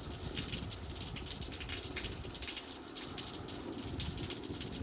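Rainwater running off a roof edge that has no gutter, a steady splashing wash with many small drip ticks.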